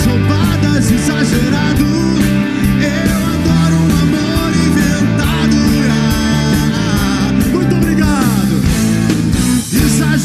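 A rock band playing live, with electric guitars, drums and keyboard, and a singing voice. Near the end the music briefly drops out.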